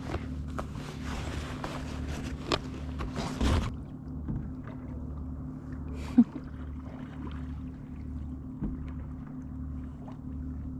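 Kayak on the water: a steady low rumble with a slow pulse about once a second, scattered ticks and splashes, and one sharp knock about six seconds in. The hiss and ticks above the rumble cut off abruptly a little before four seconds.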